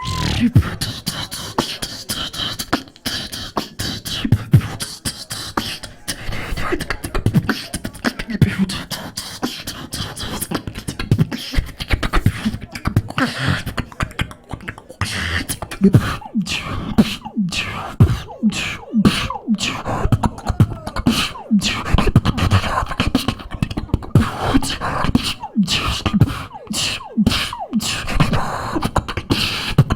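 Solo beatboxing: a fast, dense stream of vocal kick, snare and hi-hat sounds mixed with deep bass tones that slide down in pitch.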